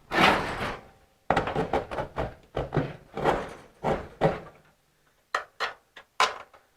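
Irregular scraping and knocking of car front-end sheet metal being pulled and shifted into line while a bolt is pushed into place. A few short sharp clicks follow near the end.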